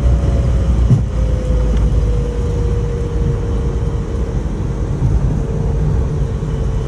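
1999 Ford Mustang's 3.8-litre V6 running, a steady low exhaust rumble with a faint steady tone that drifts slightly lower.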